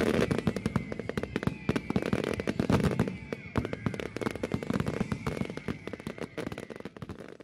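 Fireworks display: dense, overlapping bangs and crackling from many shells bursting at once. It starts abruptly and thins out near the end.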